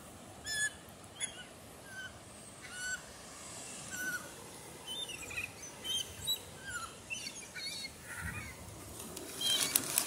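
A flock of gulls calling: short, sharp squawks, at first about one a second, then coming faster and overlapping in the second half, busiest near the end. Underneath is the steady hiss of the surf.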